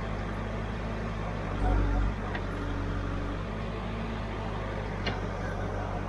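Backhoe loader's diesel engine running steadily, with a brief louder low surge just under two seconds in and a couple of light sharp clicks.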